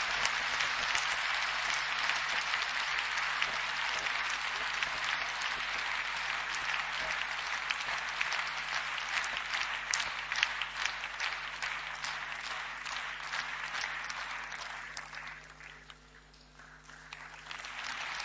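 Audience applauding steadily. It dies down about fifteen seconds in, then swells again near the end.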